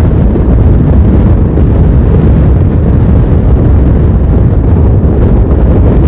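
Loud, steady wind rumble on the microphone of a camera on a moving motorcycle riding in strong wind.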